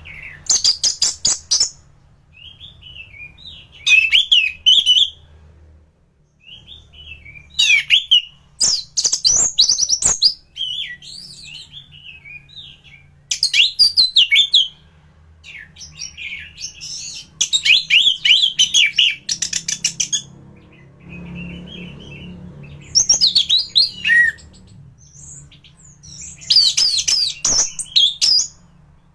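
Anis thrush singing a loud, varied song in short phrases of whistled notes and fast, rattling trills, broken by brief pauses.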